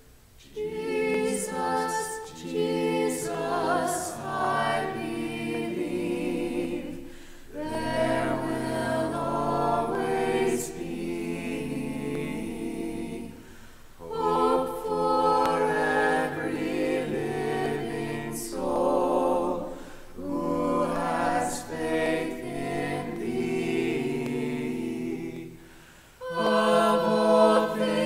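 A small vocal group of four singers singing a hymn in harmony, apparently unaccompanied, in phrases of several seconds each with brief breaks for breath between them.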